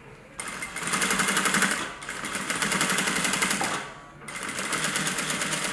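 Industrial sewing machine stitching a seam through waxed canvas, its needle running at a fast, even stroke in three runs of about a second and a half each, with short pauses between.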